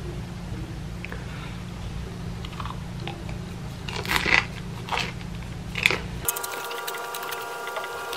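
Crusty bread being bitten and chewed, with a few sharp crunches, the loudest about four seconds in and more near five and six seconds. Just after six seconds the low background hum gives way to a few steady held tones.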